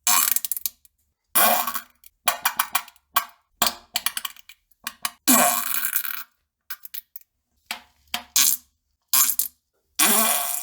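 A string of fart sounds: about ten short blasts with silent gaps between them, several of them sputtering in quick little pops.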